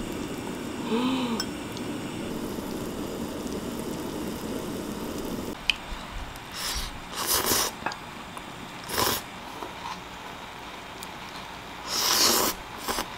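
Soy-milk noodles slurped off chopsticks in a few short, noisy slurps, about six and a half, nine and twelve seconds in. Before them a pot simmers with a low steady bubbling on a portable gas burner, which stops about five and a half seconds in.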